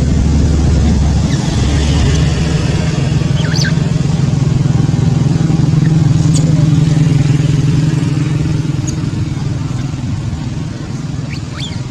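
A motor vehicle engine running past, growing louder to a peak mid-way and then fading, with a few short high squeaks over it.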